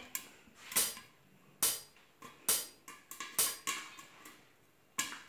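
Popcorn kernels popping in a steel pan covered with an upturned plastic bowl: about eight sharp pops at uneven intervals, mostly under a second apart.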